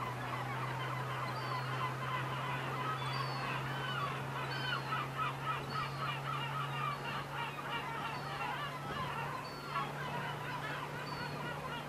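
A flock of birds calling, many short calls overlapping one another, over a steady low hum that steps slightly higher about nine seconds in.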